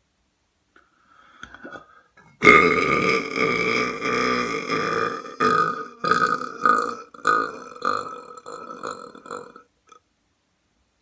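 A long, loud human belch begins suddenly about two and a half seconds in. After about three seconds it breaks into a string of shorter belches that trail off near the end.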